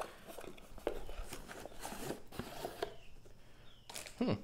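Cardboard box being handled as its tuck flap is opened and a boxed knife is slid out, giving scattered small rustles and taps. A brief, louder sound comes near the end.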